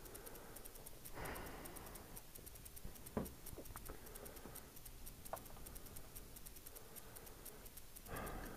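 Faint rustling and a few light clicks and taps over quiet room tone, with a fine fast ticking in the background.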